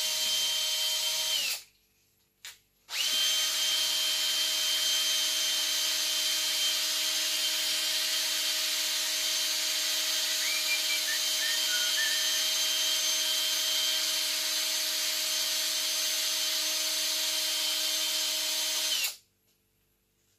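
Cordless drill set to gear 1, turning a paddle mixer through two-part mould-making silicone at low speed so as not to stir in bubbles. It gives a steady whine that stops about a second and a half in, then starts again with a click in the gap between. It runs evenly until it winds down near the end.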